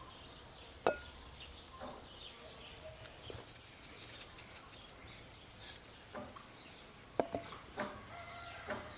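Crushed biscuit crumbs poured from a metal bowl into a glass mixing bowl and stirred in with a silicone spatula. There are two sharp clinks against the glass, about a second in and after seven seconds, and a quick run of faint ticks in the middle as the crumbs pour. Birds call in the background.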